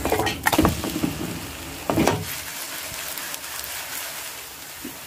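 Buckwheat pancake batter sizzling in an oiled frying pan, a steady hiss that grows slightly quieter. A few scrapes and taps of a spoon spreading the batter in the pan come in the first couple of seconds.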